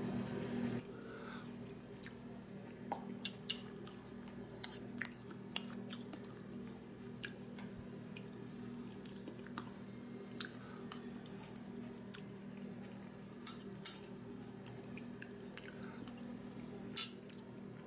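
A person eating butter beans from a bowl with a metal spoon: scattered sharp clinks of the spoon against the bowl, with chewing. A steady low hum runs underneath, louder for the first second.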